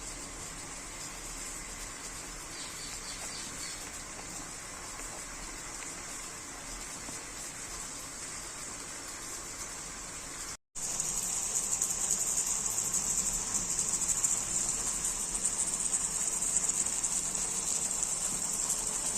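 Insects trilling steadily at a high pitch. After a brief gap about ten seconds in, the trill comes back louder.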